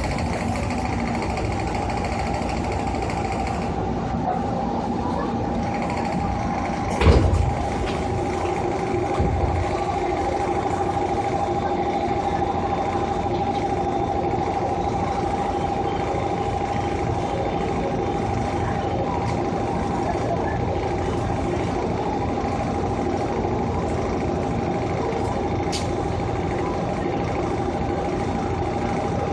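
Interior running sound of a JR 205 series electric train at steady speed: a steady whine from the traction motors and gearing over the rumble of the wheels on the rails, with a sharp knock about seven seconds in.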